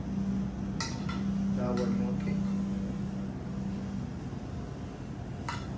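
Metal cutlery clinking against a plate and frying pan three times while food is served: about a second in, near two seconds with a brief ring, and near the end. A steady hum runs underneath throughout.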